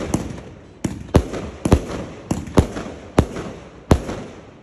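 Clobbering Time 259 firework firing a rapid volley of sharp bangs, about two a second, each trailed by a fading crackle. The volley stops near the end.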